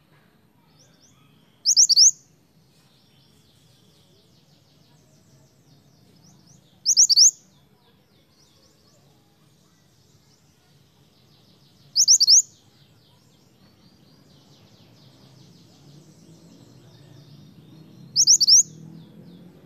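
Minivet (mantenan) calling: four loud, sharp double notes, each about half a second long and about five seconds apart, with faint high twittering between them.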